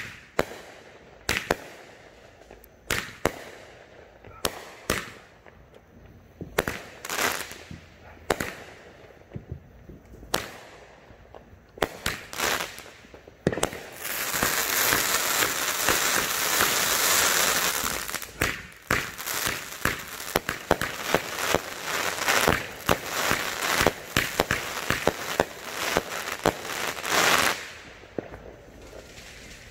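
A consumer aerial firework cake firing shot after shot, each a sharp bang a second or two apart. About halfway through, a dense crackling takes over for a few seconds, followed by a fast run of pops and crackles that stops shortly before the end.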